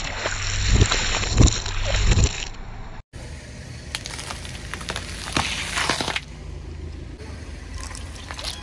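Car tyre rolling over drink pouches, crunching and bursting them with heavy thumps, loudest about a second and a half in. After a sudden cut, the tyre crushes a bundle of green plant stalks with a crackling crunch.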